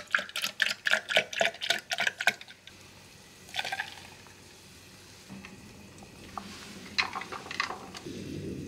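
Milk poured from a carton over large ice cubes in a stainless steel tumbler, a quick run of splashing and clinking for about two and a half seconds. After a pause, coffee is poured in with a short splash, and a few light knocks come near the end.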